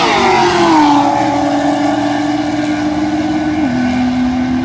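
A Chevrolet Camaro and a Nissan GT-R racing at full throttle past and away: the engine note falls in pitch as they go by, then holds steady, stepping down once about three-quarters of the way through.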